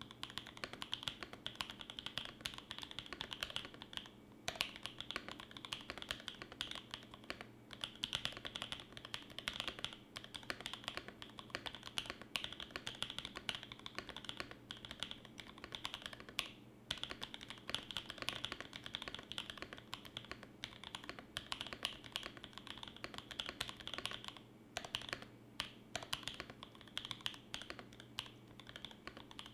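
Fast typing on a Primus75 mechanical keyboard with lubed Creampaca linear switches in an aluminium plate and GMK keycaps: a steady stream of keystrokes, broken by a few short pauses.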